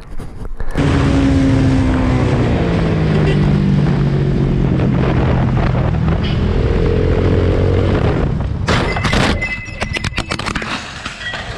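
Motorcycle engine running, falling in pitch and then rising again. About nine seconds in, a crash: several sharp knocks, then clattering and scraping.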